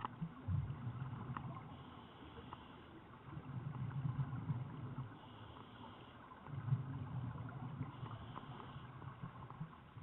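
Scuba diver breathing through a regulator underwater. Exhaled bubbles make a low burbling about every two and a half seconds, with a short hiss of the inhale between them.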